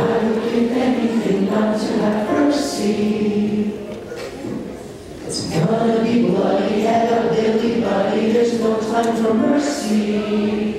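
Several voices singing together in chorus, holding long notes, with a brief dip about four to five seconds in.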